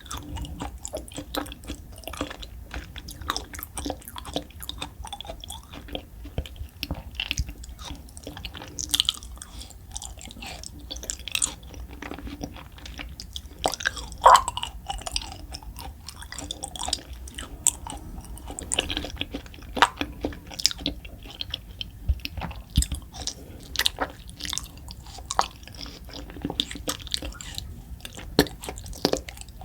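A person chewing food close to the microphone, with irregular wet clicks and crunches throughout; one sharper crunch about fourteen seconds in is the loudest.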